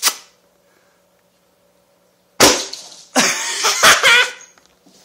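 A short sharp click, then about two and a half seconds in a sudden loud blast as a clear-plastic toy air percussion gun (air vortex cannon) fires. Another burst of noise follows for about a second.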